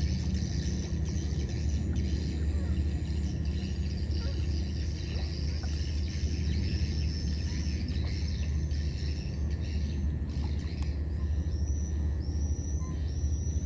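Outdoor ambience: high-pitched chirping and buzzing over a steady low rumble. Near the end comes a quick run of short, repeated high chirps.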